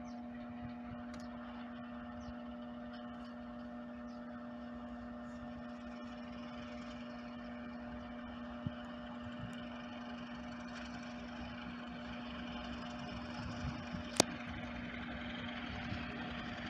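Steady mechanical hum with a low rumble from a distant freight locomotive, growing slightly louder near the end as the train approaches. A single sharp click about fourteen seconds in.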